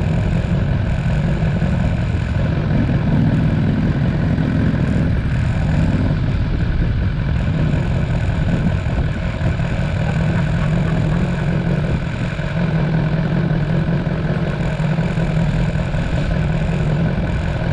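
BMW S1000XR motorcycle's inline-four engine running steadily, with no clear revving up or down.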